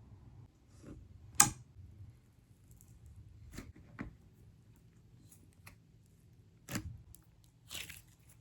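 Slime being handled by hand, giving scattered sharp clicks and pops, the loudest about a second and a half in, with a few softer ones after.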